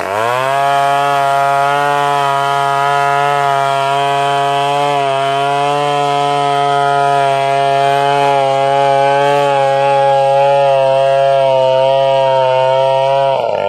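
Stihl 070 chainsaw's big single-cylinder two-stroke engine running at steady high revs while cutting wood. Its pitch drops sharply and recovers right at the start, and again near the end.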